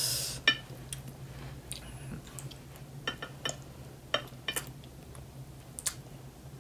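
Scattered small clicks and taps from strawberries being handled on a ceramic plate and eaten, with a sharp click about half a second in after a short hiss, over a low steady hum.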